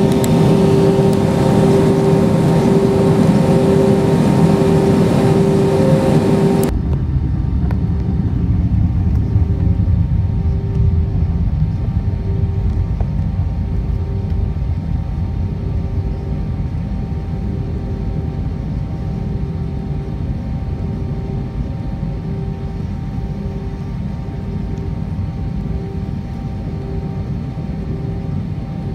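Cabin sound of an Airbus A320-232's IAE V2500 engines at idle on the taxiway, heard from a window seat over the wing: a steady rumble with a hum. About seven seconds in it changes abruptly to a quieter, lower rumble in which the hum pulses about once a second.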